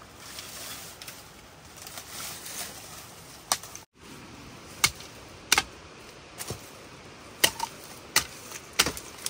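Irregular sharp cracks and snaps, about eight over the last six seconds, after a stretch of rustling: bamboo shoots being broken off and handled during harvesting.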